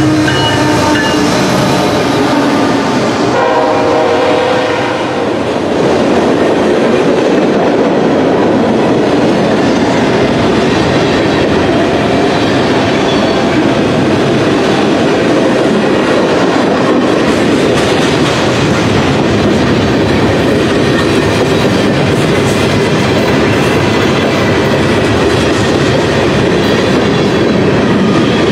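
A slow freight train's tank cars rolling by close up: a steady loud rumble of wheels with rail clatter. A brief locomotive horn chord sounds about three to five seconds in.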